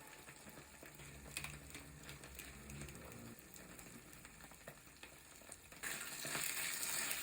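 Skewered sausages with spaghetti frying in hot oil: a faint crackle with scattered pops, the sizzle growing louder about six seconds in.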